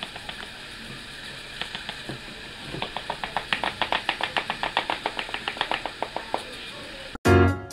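Small plastic sieve shaken and tapped against the rim of a plastic funnel, sifting ground dried herbs into a glass jar: a few scattered clicks, then a quick rattling run of taps, several a second, for a few seconds. Music cuts in suddenly at the very end.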